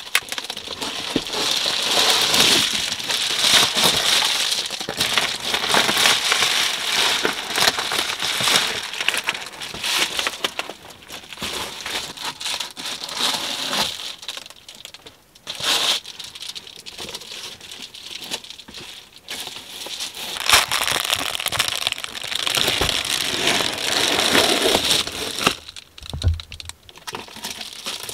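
Reflective bubble-foil window covers crinkling and crackling as they are handled and pressed into a minivan's windows, in loud stretches with a quieter spell in the middle.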